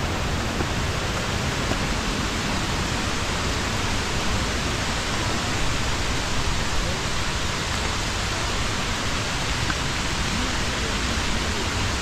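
Steady, even rushing of falling water, with no breaks or separate events.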